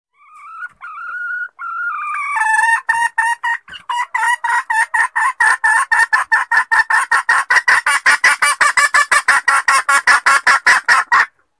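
Female junglefowl's lure call: a couple of drawn-out whining notes, then a long, fast run of short clucks, about five a second, that stops abruptly.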